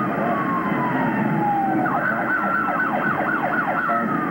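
Emergency-vehicle siren: a slow falling wail, then about two seconds into it a fast up-and-down yelp, then a steady tone again, over a constant low rumble.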